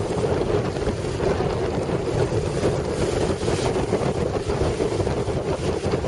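Gale-force wind buffeting the microphone in a constant low rumble, over the wash of large storm waves breaking on a pebble shore.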